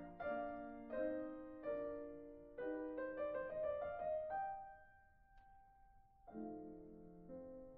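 Background music: slow, gentle solo piano chords, one about every second. Just past the middle a single note is held and left to fade for about two seconds before the chords start again.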